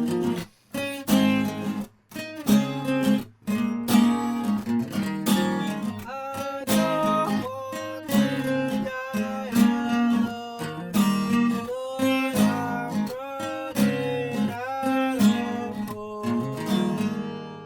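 Acoustic guitar strummed in an instrumental passage, chord after chord with a melody line over them; a last chord rings out near the end.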